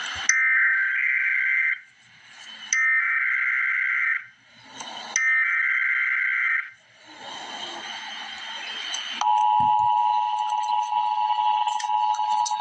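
Emergency Alert System header: three bursts of screeching digital data tones, each about a second and a half long with a second's gap between them. About two and a half seconds after the third burst, the steady two-tone EAS attention signal starts and holds.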